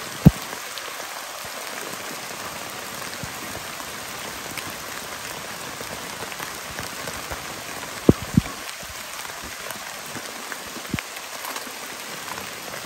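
Steady rain falling on a nylon tent fly and the surrounding leaves, with a few sharp knocks, the loudest right at the start and a pair about eight seconds in.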